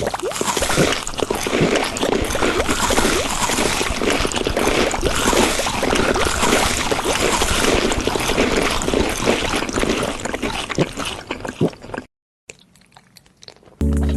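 Close-up wet, squishy eating sounds, a dense crackle of chewing and slurping that cuts off suddenly about twelve seconds in. Music starts near the end.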